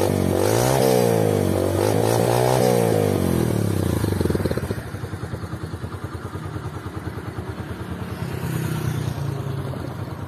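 Yamaha YBZ 125's single-cylinder four-stroke engine heard close to the exhaust, revved up and down twice, then dropping back to a steady idle about four and a half seconds in.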